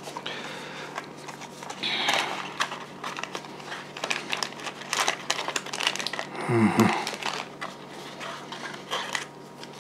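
Thick cardboard knife box being opened by hand: the sleeve and inner tray scraping and rubbing, with light taps, clicks and packaging rustle. A brief low-pitched sound about six and a half seconds in is the loudest moment.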